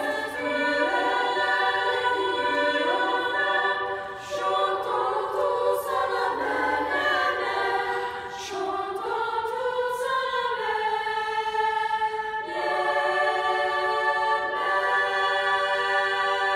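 Small youth choir singing a cappella in several-part harmony, ending in long held chords.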